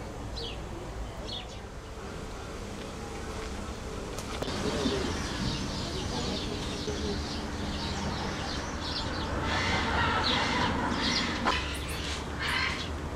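Birds chirping and calling, busier in the second half, over a low steady hum.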